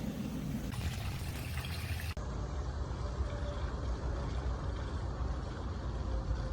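Water from a pool waterfall fountain pouring steadily into an above-ground pool, a constant splashing rush with a low rumble; the sound changes abruptly about two seconds in.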